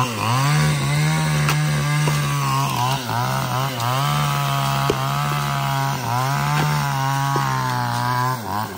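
Chainsaw cutting into logs, its engine held at high revs. The pitch rises just after the start, sags briefly twice as the chain bites into the wood, and falls away near the end.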